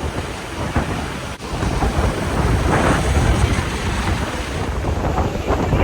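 Yosemite Falls crashing down at close range: a steady, deep rushing roar of falling water, with wind buffeting the microphone.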